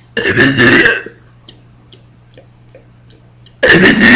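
Two loud, rough burps forced up after gulping soda: a short one about a second long at the start, and a second, longer one beginning near the end.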